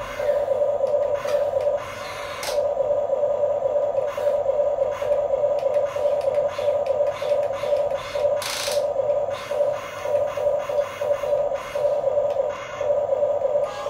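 Huina 1550 remote-control excavator's small electric gear motors whining as the boom and bucket move, dropping out briefly about two seconds in. Clicks and scraping from the bucket working the sand come through over the whine.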